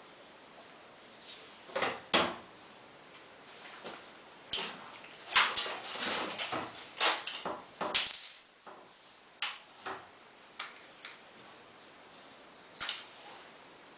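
Scattered metallic clinks, clicks and knocks of washing-machine motor parts and tools being handled, busiest in the middle with a short metallic ring about eight seconds in, then a few sparse clicks.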